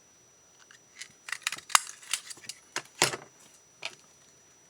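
Scissors snipping through cardstock scraps: a quick, irregular run of sharp clicks and snips, starting about a second in and stopping shortly before the end, with two louder cuts in the middle.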